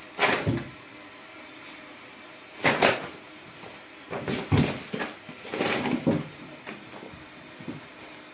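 A plastic-coated oilcloth sheet crinkling and rustling in several short bursts as a cat scrambles under and over it, with light knocks on a wooden floor.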